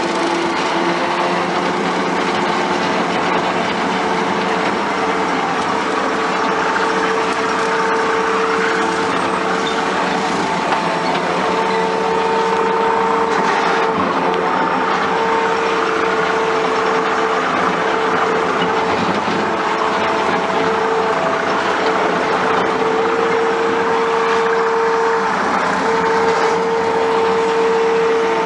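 Skid steer running steadily while mowing with a hydraulic-motor-driven mower deck: a constant engine and machine noise with a steady whine held over it.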